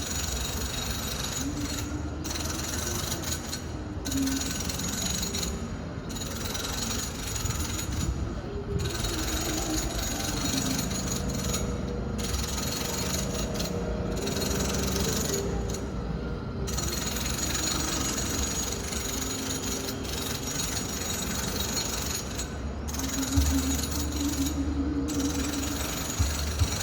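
Home renovation noise from a distant room: power tools run in stretches broken by short pauses every few seconds, with a wavering low drone at times.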